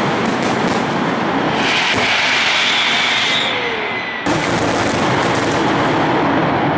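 Dense fireworks barrage: a continuous rapid crackle of bursting shells and rockets with repeated bangs. A whistle sounds from about two seconds in and falls away, and a sharp louder volley breaks in just after four seconds.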